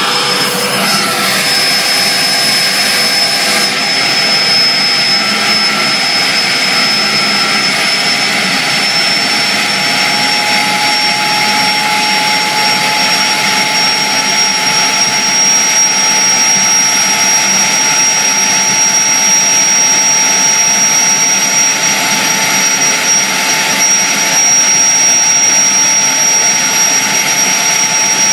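1950s Budworth jet engine running: a loud, steady rush with a high turbine whine over it. The whine edges slightly higher in pitch about a third of the way in and then holds.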